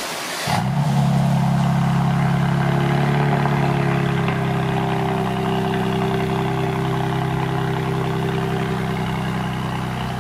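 Mercedes-AMG C43's twin-turbo 3.0-litre V6 cold-starting through an aftermarket Fi Exhaust system. It catches about half a second in, then settles into a steady idle that grows slightly quieter.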